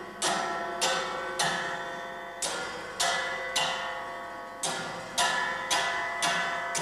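Large metal coil springs of a sound sculpture, sounded by hand close to a microphone. Each stroke gives a sharp twang that rings on with many metallic overtones and dies away. There are about ten strokes, in groups of three or four, about half a second apart.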